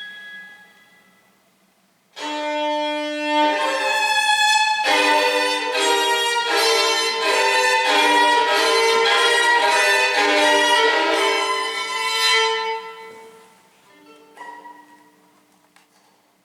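Violin music: a solo melody of held, bowed notes that starts loudly about two seconds in, after the last notes of an earlier phrase fade. It dies away around thirteen seconds, followed by a short, quieter phrase.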